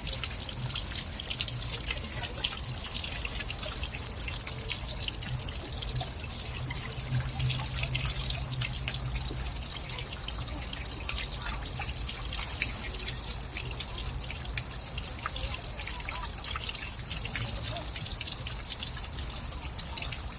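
Water from a small water wheel trickling and splashing steadily, with many small drips and spatters over a constant rush.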